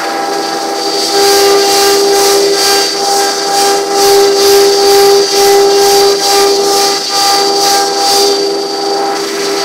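CNC router spindle cutting a pattern into a wood panel: a loud steady high-pitched whine with a cutting hiss that swells and fades a few times a second.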